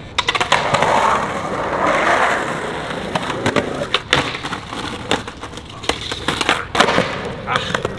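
Skateboard rolling over skatepark concrete with a steady rough wheel rumble, broken by several sharp clacks of the board popping and landing during a trick attempt.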